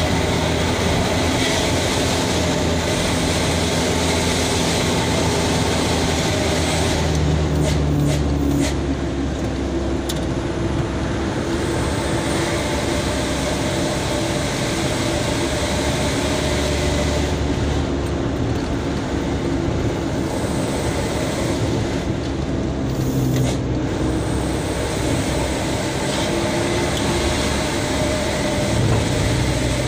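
Truck engine running under way, heard from inside the cab with road noise. The engine note shifts up and down a few times as the truck drives on.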